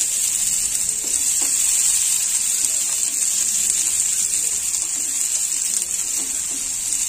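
A steady hiss throughout, with soft scrapes of a silicone spatula stirring chopped onions in a nonstick frying pan.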